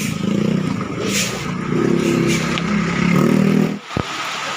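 Motor vehicle engines running and passing, a loud low hum that shifts in pitch. It cuts off suddenly near the end, followed by a single click and a steady hiss.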